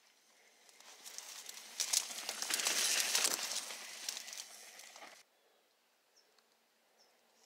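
A mountain bike rolling past through dense trailside plants, tyres on dirt and leaves and stalks swishing and crackling against bike and rider. It swells up over about two seconds, then cuts off suddenly a little past halfway.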